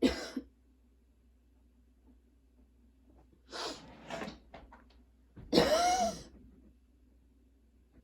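A young woman coughing in fits: a sharp cough right at the start, two smaller coughs about three and a half seconds in, then the loudest, voiced cough a couple of seconds later, with quiet gaps between. This is a persistent cough that her current medication is not controlling.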